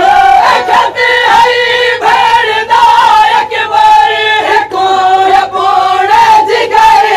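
A crowd of men chanting a Siraiki noha, a mourning lament, together in chorus, with the voices held on long drawn-out lines.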